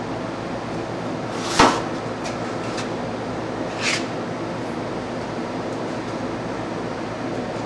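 Steady hum of a busy shrimp-peeling hall, with two sharp clanks of stainless-steel bowls being handled on steel tables: a loud one about a second and a half in and a softer one about four seconds in.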